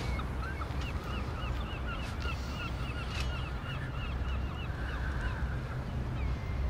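A flock of birds calling, short calls repeated several times a second, over a low steady rumble.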